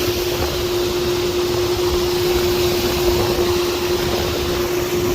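Golden Motor EZ-X20 brushless electric outboard motor running at a steady speed: a single even whine over a broad rush of water and wind.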